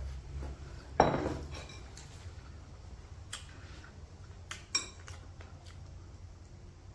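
Cutlery clinking against a plate during a meal: a louder knock about a second in, then a few lighter, ringing clinks.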